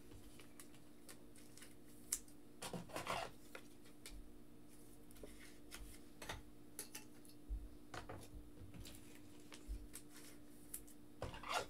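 Faint, irregular clicks and taps of trading cards and plastic card holders being handled and set into stands on a table, over a steady low hum.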